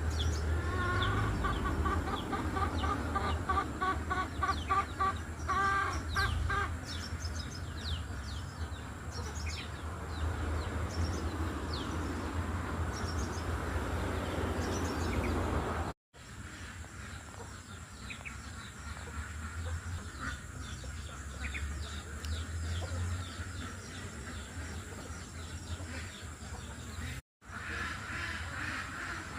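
Chickens clucking, with a fast run of repeated calls in the first six seconds or so, over a steady low background rumble. The sound drops out briefly twice.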